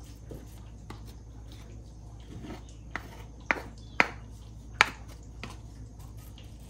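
Wooden spoon pressing fried rice firmly down into a ceramic dish, with a few sharp knocks of the spoon against the dish, the loudest about four and five seconds in.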